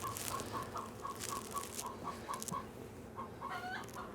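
Chickens clucking: a steady run of short, quick clucks, with one longer, bending call near the end.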